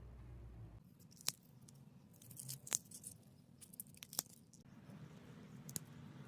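Fresh pea pods snapping: four sharp snaps about a second and a half apart, with soft crunching and crackling in between.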